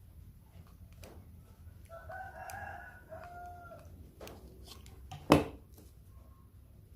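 A rooster crowing once for about a second and a half, then a single sharp knock a little past the middle.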